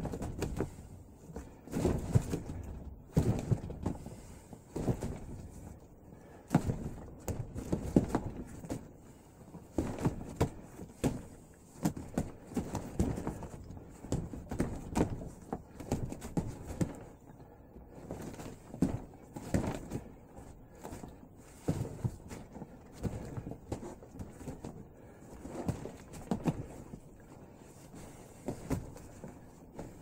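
Hands and forearms striking a homemade Wing Chun dummy wrapped in duct tape: irregular clusters of knocks and thuds with short pauses between them.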